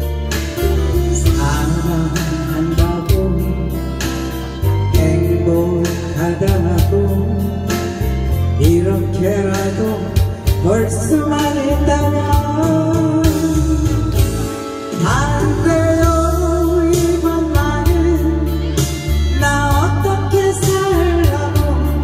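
A woman singing a Korean trot ballad into a microphone, accompanied by acoustic guitar over a backing of bass and a steady beat.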